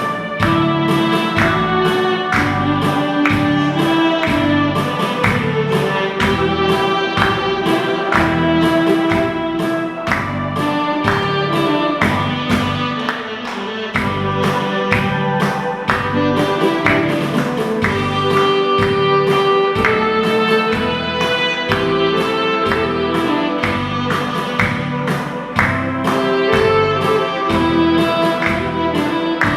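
Saxophone playing a slow song melody in long held notes over accompaniment with a steady beat.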